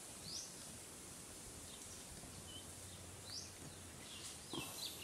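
Outdoor background hiss with a few short, high bird chirps sliding down in pitch, about half a second in, again around three and a half seconds, and several more near the end.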